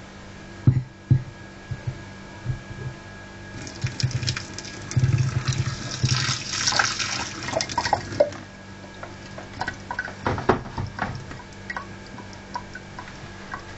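Water splashing and running over an open, powered hard disk drive for about four seconds, starting about four seconds in, with scattered clicks and knocks before and after. A faint steady hum runs underneath.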